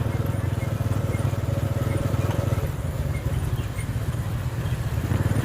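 Vehicle engine running steadily at an even speed.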